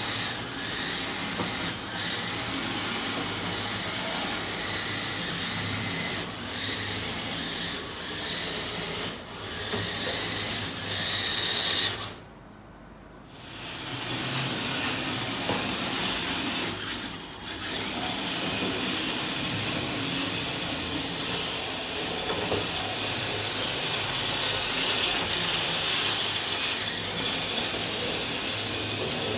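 Märklin Metallbaukasten E60 model locomotive running, its geared-down Märklin 1022 electric motor whirring through the reduction gearing while the metal wheels roll on the track. The sound drops away for about a second and a half roughly midway, then carries on.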